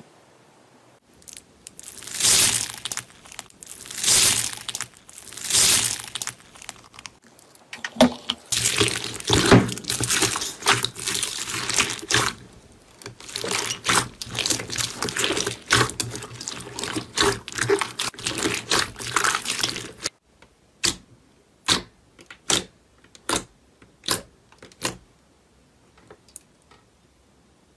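Hands working slime and foam beads: a hand sweeps through a bowl of loose foam beads in a few long swishes, then two hands squish clear red slime packed with foam beads in dense crackling squelches. Near the end, fingertips pressing a flat sheet of clear slime make a row of short, sharp sticky pops.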